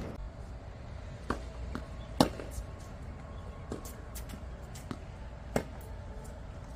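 Tennis rally: a handful of sharp pops from racket strikes and ball bounces on a hard court, spaced irregularly, the loudest about two seconds in and another strong one near the end.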